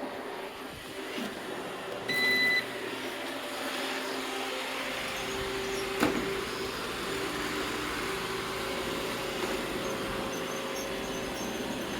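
Robot vacuum cleaners running, a steady motor and brush hum with several tones in it. A short electronic beep sounds about two seconds in, and a single sharp knock about six seconds in.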